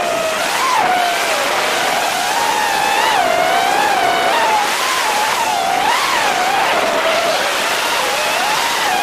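Racing quadcopter's brushless motors and propellers whining, heard close up from on board. The pitch swings up and down every second or so with the throttle, over a steady hiss of propeller wash.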